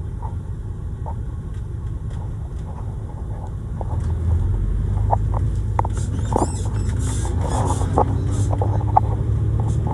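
Road and engine rumble heard inside a moving car, growing louder about four seconds in, with a few light clicks and knocks.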